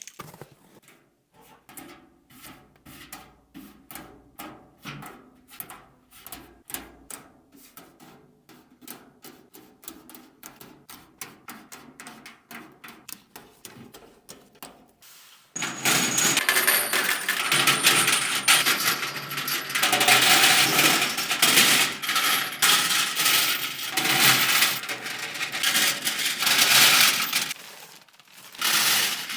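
Grade 8 steel hex bolts, nuts and washers clinking as they are dropped into an assortment kit: separate clicks two or three a second at first, then from about halfway a louder, dense jingle of many pieces tumbling in together.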